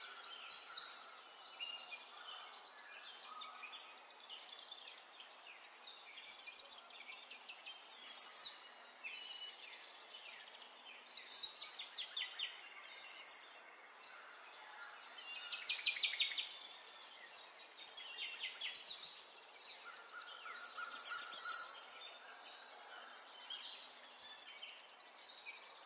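A small songbird singing in short, rapid trilled and chirping phrases, one burst every couple of seconds.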